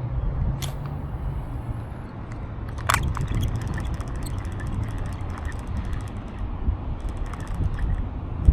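Vintage St. Croix Fishing Machine spincast reel being cranked in on the retrieve, a fast, even high ticking that pauses briefly and starts again, after a sharp click about three seconds in. Low wind rumble on the microphone underneath.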